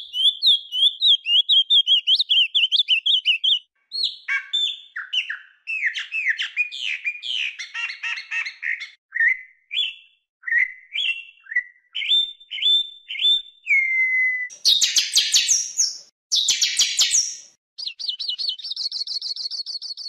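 Songbird singing: a string of varied phrases of quick chirps and warbles with short gaps between them. Held whistled notes come about two-thirds of the way through, then two dense bursts of chirping, and a fast high trill near the end.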